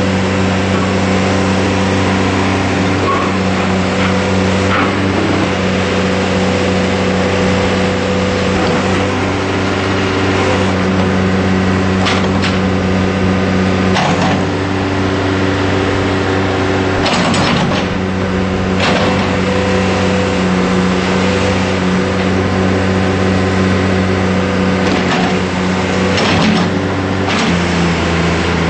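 John Deere 710C backhoe loader's turbocharged diesel engine running steadily, its pitch shifting slightly now and then, with several sharp knocks and clunks in the second half.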